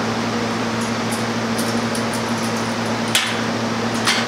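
Brewery chiller running with a steady hum and fan noise, with two sharp clicks about three and four seconds in as tri-clamp fittings and tubing are handled.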